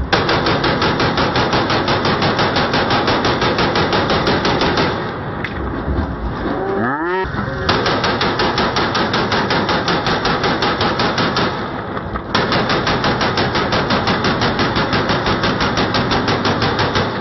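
AK-47 rifles fired on full automatic into the air: three long, rapid bursts of shots with short pauses between them.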